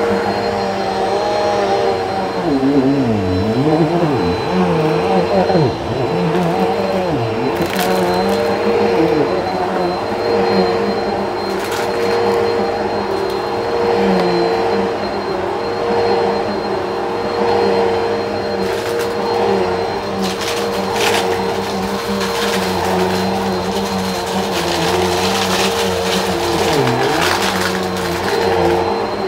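Bissell upright vacuum cleaner running over shag carpet, its motor whine steady but dipping in pitch a few times as it bogs down. Grit crackles and clicks up through it, sparse at first and densest in the second half.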